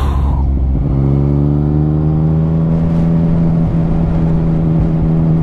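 Yamaha XSR motorcycle engine pulling away, its note rising over a couple of seconds and then holding steady, over a constant low wind rumble on the rider's microphone. There is a short click right at the start.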